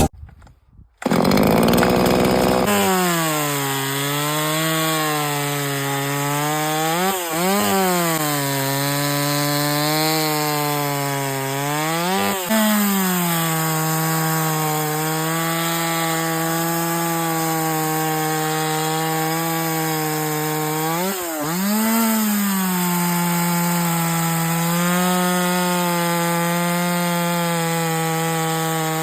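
Holzfforma G180 petrol chainsaw's small two-stroke engine running at high speed, starting about a second in. Its pitch wavers steadily and sags briefly and recovers three times.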